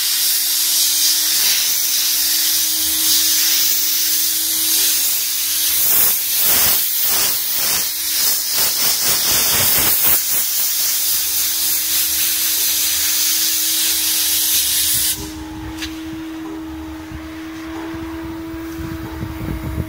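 Steam cleaner's brush nozzle hissing steam into a carpeted car floor mat. The hiss pulses with back-and-forth brush strokes between about six and ten seconds in, then cuts off suddenly about fifteen seconds in, leaving a steady hum.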